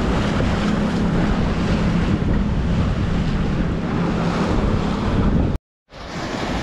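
A small passenger boat's motor running steadily with a low hum, under heavy wind noise on the microphone and water rushing past the hull. It cuts off abruptly near the end, and quieter wind follows.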